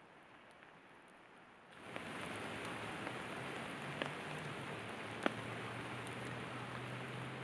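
Steady rain falling on the ground around the microphone, with single heavy drops hitting close by now and then. About two seconds in, the rain suddenly grows louder.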